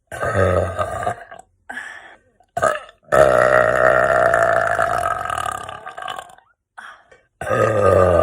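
A woman burping loudly, over and over: a burp in the first second, two short ones, then one long drawn-out burp of about three seconds, its pitch sinking slightly, and another starting near the end.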